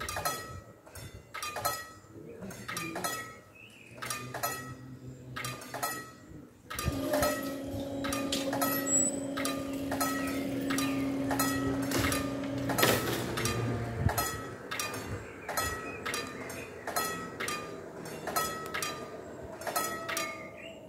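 Railway level crossing's electronic warning bell dinging evenly, about one and a half strikes a second, as the barriers lift. A steady hum joins it for several seconds in the middle.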